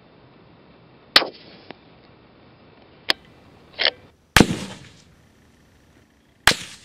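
Rifle shots from a .308 Remington 700 bolt-action, fired suppressed and unsuppressed: about five sharp reports. The loudest comes a little past four seconds in, with a trailing echo.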